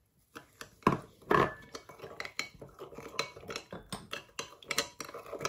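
Metal spoon clinking and scraping against a small glass bowl while stirring melted butter with warm liquid, a run of quick irregular clinks with two louder knocks about a second in.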